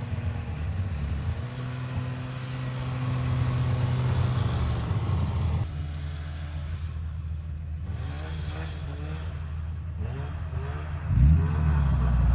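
Motor vehicle engine running steadily at low revs, with a louder surge of revving about eleven seconds in.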